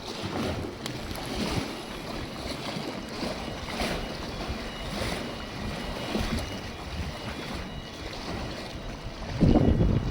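Water rushing and churning through a dam's flap gate as an irregular noise, with a louder surge about nine seconds in.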